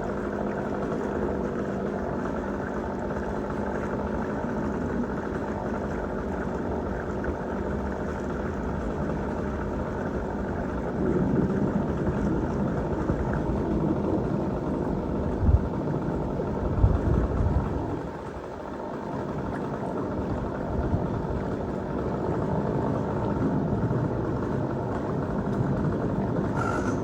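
An engine running steadily, louder from about eleven seconds in, with a couple of sharp thumps just after the middle.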